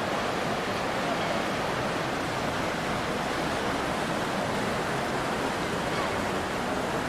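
Steady rushing noise, with faint voices in it.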